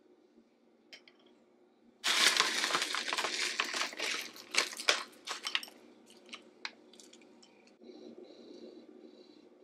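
A granola bag crinkling as granola clusters are poured out into a glass bowl, a dense crackling with many small clicks starting about two seconds in and lasting about four seconds, then a few scattered clicks.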